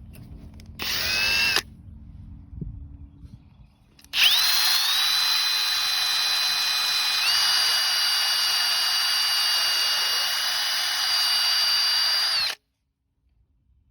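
Handheld electric power tool: a brief run about a second in, then from about four seconds in a steady high whine with a grinding hiss for about eight seconds. The whine steps up in pitch midway and then cuts off suddenly. It is stripping Bondo or JB Weld filler off the welded joints of a go-kart frame.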